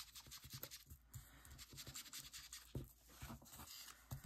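Ink blending tool's pad rubbed and dabbed along the edges of a thin paper cut-out: faint, quick, irregular scratchy strokes, several a second.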